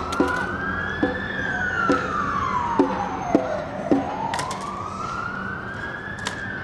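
A wailing siren, its pitch slowly rising and falling in a cycle of about five seconds, with a few short knocks over it.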